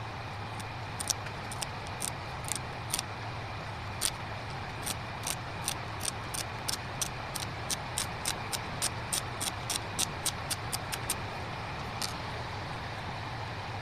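Quick, light ticking taps on a smartphone's glass screen, speeding up to about three a second midway, as a dust-removal sticker is dabbed over it to lift dust before the screen protector goes on. A steady low hum runs underneath.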